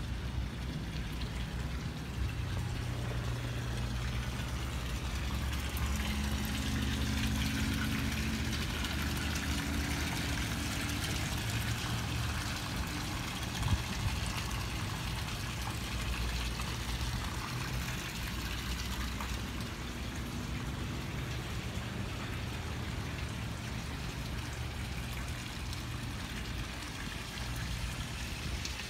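A steady low engine hum of an idling engine, with a light hiss of water and wind around it and one brief knock about halfway through.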